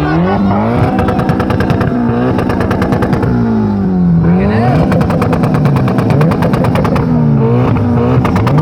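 Modified car engine revved hard about three times, held at high revs with a rapid, even crackle, and falling back between revs.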